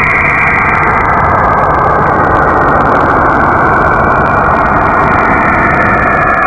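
Sonified space recording, a planet's electromagnetic emissions converted to audio: a loud, steady rushing drone with a low rumble underneath.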